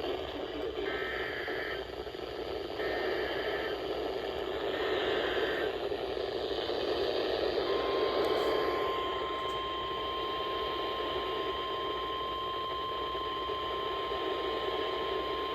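NOAA Weather Radio over a hissy reception: three short one-second bursts of EAS/SAME header data in the first six seconds, then the steady 1050 Hz weather-radio warning alarm tone comes on about eight seconds in and holds. It is the alert that opens a severe thunderstorm warning.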